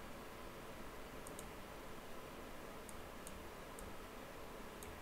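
Quiet room hiss with about six tiny, faint high-pitched ticks scattered through it, like small clicks of a computer mouse or keys.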